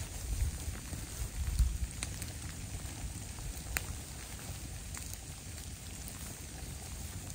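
Steady rain falling in a forest as an even hiss, with scattered sharp ticks of drops. A couple of low thumps come in the first two seconds.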